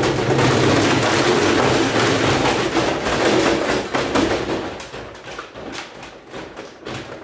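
Gorenje WNHEI washing machine banging and rattling hard with a load of soaking wet clothes, a dense run of rapid knocks that dies down over the last three seconds.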